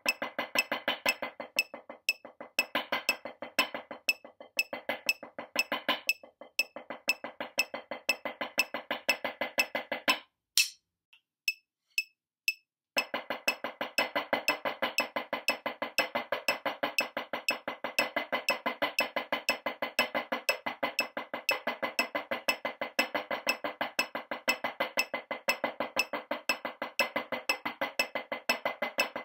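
Wooden drumsticks playing an "eights" drumline exercise on a marching practice pad: rapid, evenly spaced strokes. About ten seconds in the playing stops for a couple of seconds, then a faster version with double stops starts.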